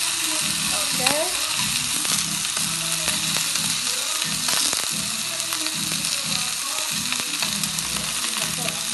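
Chicken wings sizzling steadily in a dry nonstick frying pan with no oil, with scattered crackles and pops.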